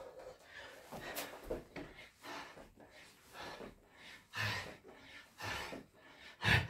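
A man's heavy, rapid breathing from hard exertion during burpees: sharp, noisy breaths about once a second.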